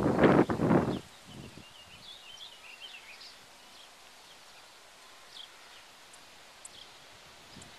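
A loud, breathy rush of noise lasting about a second at the start, then faint bird chirps over a quiet outdoor background.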